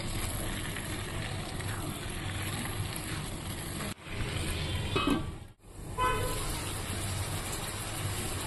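Steady low noise of the stove and the pointed gourd and potato pieces cooking in the kadhai, breaking off briefly twice. A couple of short honk-like tones come in around five and six seconds in.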